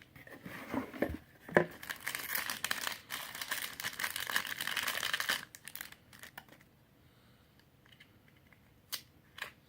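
Packaging crinkling and tearing as a collectible item is pulled out and unwrapped, busy for about the first five seconds, then stopping; two light clicks near the end.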